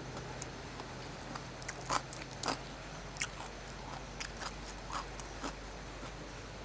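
Crisp snapping and crunching close to the microphone, a string of sharp cracks with the loudest about two seconds in, as fresh green vegetable stems are broken and crunchy food is eaten.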